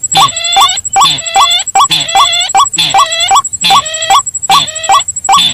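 Bird-lure playback of rail calls, white-breasted waterhen (ruak-ruak) mixed with the rail known as sintar ladang: hooked notes repeated in an even rhythm about two to three times a second. A thin, steady high-pitched whine runs underneath.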